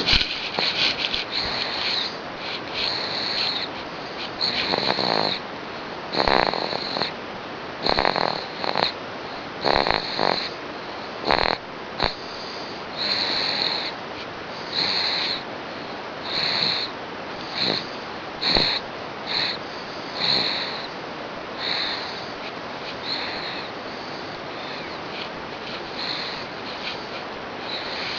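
A sleeping pet snoring, with a raspy, whistling breath about every second to second and a half.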